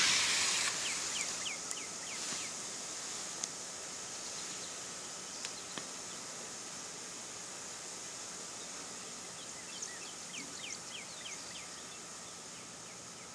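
Backyard ambience with a steady hiss that is louder at first and eases over the first few seconds. A bird calls twice in quick runs of short, falling chirps, once about a second in and again near the end.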